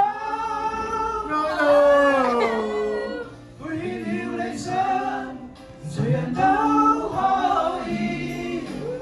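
A man singing karaoke into a microphone played through a speaker, in long held and sliding phrases with short breaks about three and a half and six seconds in.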